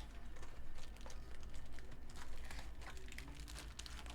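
Light crinkling and small scattered clicks of trading-card packs and box cardboard being handled as a hobby box is opened.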